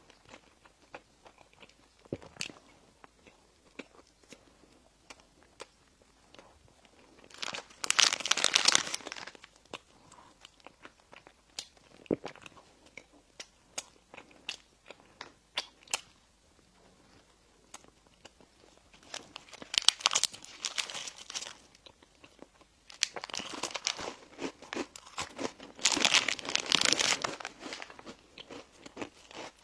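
Close-up eating sounds of bread and pastries: small clicks of chewing and biting, broken by three louder crunchy, crinkly bursts, the last one lasting several seconds.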